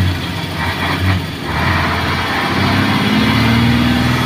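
Isuzu Giga truck's 6WA1 inline-six diesel engine heard from inside the cab, driving on the road under load. After a short dip a little over a second in, the engine note climbs in the second half.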